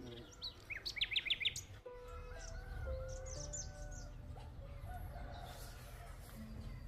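A songbird gives a quick run of high, falling chirps about a second in, then a rooster crows, over a low steady rumble.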